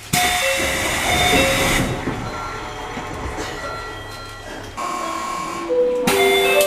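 Door chime of a JR Central 311 series train car sounding twice over the rush and clatter of the doors moving: once just after the start, as a run of short alternating tones, and again near the end, with longer held tones. The chime is faulty: normal when the doors open but garbled when they close.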